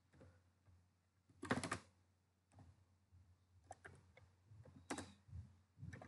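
Computer keyboard keystrokes, faint and scattered: a short run of clicks a little after one and a half seconds, then single keys and small groups up to the end, as a constructor is typed in a code editor.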